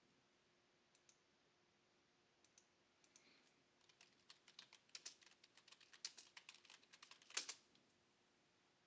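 Computer keyboard typing: a few scattered key clicks, then a quick run of keystrokes about halfway in, ending with one harder key strike.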